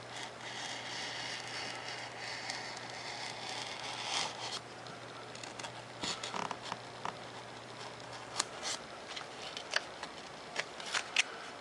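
Razor knife slicing through a sheet of 3mm Depron foam, a scratchy zipping drag for the first four and a half seconds, followed by scattered light clicks and taps.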